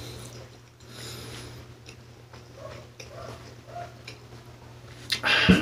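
A person chewing a mouthful of pancit canton instant noodles with his mouth closed: soft wet chewing and small mouth clicks, with a short louder noise near the end.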